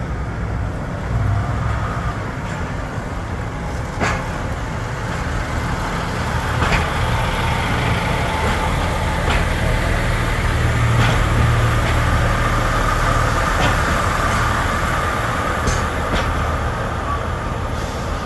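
British Rail Class 144 Pacer diesel multiple unit running slowly into the station: a steady low underfloor diesel drone, with sharp clicks every couple of seconds as its wheels pass over rail joints and a thin high whine partway through as it slows.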